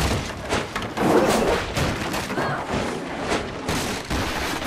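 Wooden planks and lumber crashing down in a dense, continuous clatter of hard impacts.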